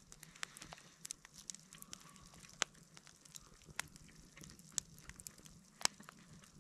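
Small wood fire crackling in the top of a slotted log: sparse, irregular sharp snaps and pops over a faint hiss.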